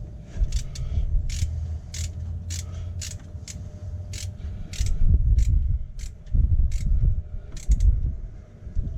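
A 10mm socket ratchet clicking as it is worked back and forth to run bolt nuts down on an engine, roughly two clicks a second with a pause before a last pair near the end, over a low rumble.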